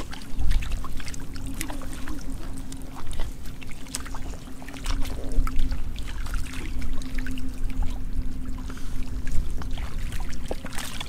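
Short splashes and slaps of shallow muddy water as hands grab at fish and the stranded fish thrash, scattered throughout, over a low uneven rumble and a steady low hum that comes and goes.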